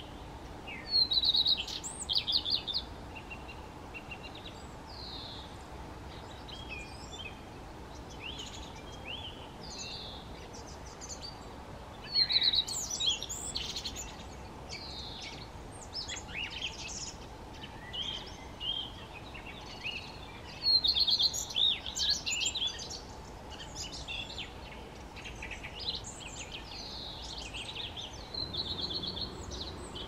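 Male common redstart singing: short, high, twittering song phrases repeated every few seconds, the loudest about a second in, at about 12 s and at about 21 s, with fainter bird phrases between.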